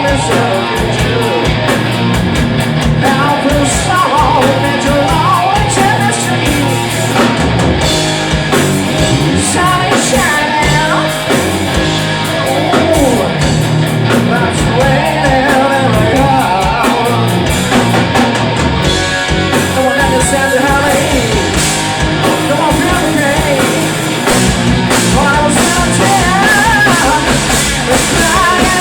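Rock band playing live, with singing over electric guitar, bass and drums.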